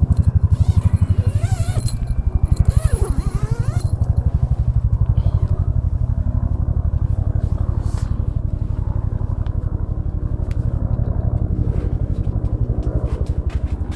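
Helicopter rotor beating in a fast, even pulse, loud and steady.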